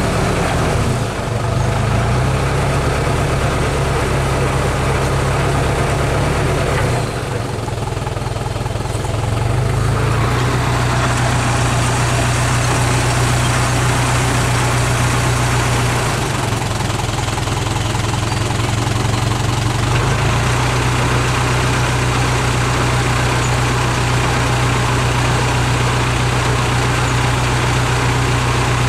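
Diesel truck engines running steadily, their low note shifting abruptly several times.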